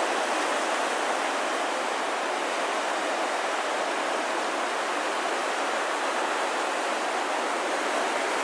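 Ocean surf breaking on a sandy beach: a steady, even rush of water noise.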